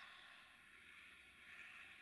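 Near silence: a faint, steady background hiss with no distinct event.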